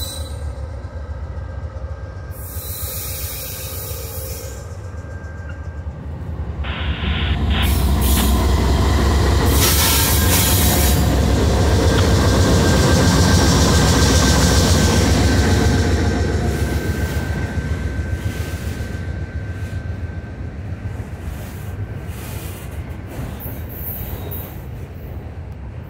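A Norfolk Southern diesel freight train passes close by. The locomotive's rumble builds from about six seconds in and is loudest as it goes past, with a thin steady wheel squeal over it. Then the rumble eases as the rail cars roll by.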